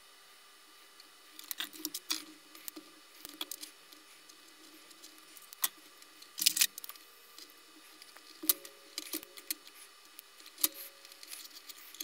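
Small clicks and brief rustles of wires, a soldering iron and heat-shrink tubing being handled on a workbench, with the loudest rustle about six and a half seconds in.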